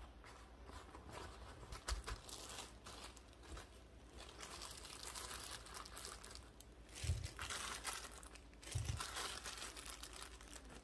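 Kitchen paper towel rustling as hands pat strawberries dry, then a disposable plastic glove crinkling as a hand sorts the strawberries on a metal tray. Two soft low thumps come in the second half.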